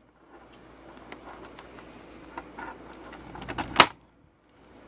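Toy packaging being handled as an action figure is worked free of its plastic tray: soft rustling and small clicks, with one sharp plastic snap nearly four seconds in.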